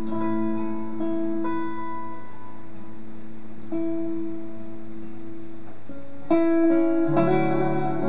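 Instrumental acoustic ensemble music: acoustic guitars and a bowed cello hold slow, sustained notes. About six seconds in the music swells louder and fuller as the violin joins.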